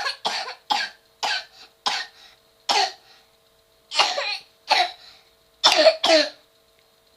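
A child coughing with a bark-like cough: about ten short coughs in uneven runs of one to three. This barking quality is typical of croup.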